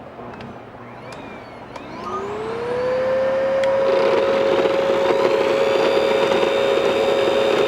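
A few light clicks, then the 3D printed styrofoam shredder's motor spinning up: a whine rising in pitch over about a second and then holding steady and loud. About four seconds in, a rougher rushing noise joins beneath the whine.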